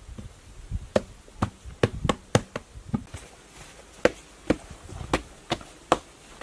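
About a dozen sharp chopping strikes of a hand tool, roughly two a second, in two runs with a short pause a little past three seconds in.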